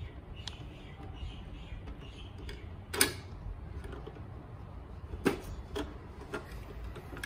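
Plastic clicks and clacks from the rear loader mechanism of a Bruder MAN TGS toy garbage truck worked by hand: a sharp clack about three seconds in and another a little after five seconds, with lighter ticks between.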